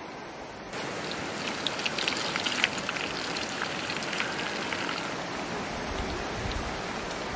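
Rain falling steadily, with many individual drops pattering sharply on a surface. It starts abruptly under a second in.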